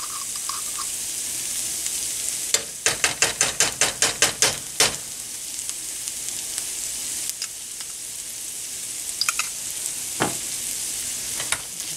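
Ground beef, sausage and onion sizzling steadily in a skillet. A few seconds in comes a quick run of about ten sharp taps, about four a second, and a few more clicks near the end as a utensil works in the pan.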